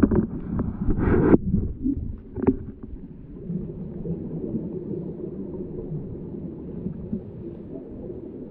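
Scuba regulator exhaust bubbles gurgling in a loud burst for about the first second and a half, then a steady, muffled low rumble of water, heard through an underwater camera housing.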